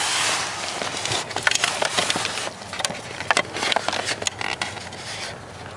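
Rustling, then from about a second in a quick, irregular run of small plastic clicks and taps: a brake light switch being worked into its mount by the brake pedal.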